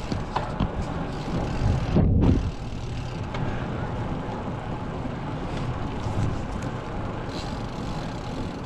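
Wind rushing over the microphone of a camera on a moving bicycle, with the low hum of tyres rolling on asphalt. A louder gust buffets the microphone about two seconds in.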